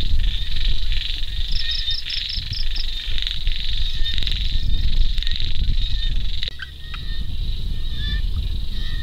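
A dense chorus of frogs calling, with a run of quick, evenly spaced pulsed calls about one and a half seconds in. A little past halfway the chorus suddenly thins to scattered calls and a few clicks, over a low rumble throughout.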